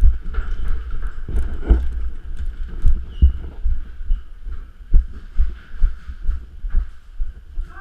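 Irregular low thumps and knocks, two or three a second, some with a sharp click on top, over a faint steady rush: handling and movement noise on the microphone during an airsoft game.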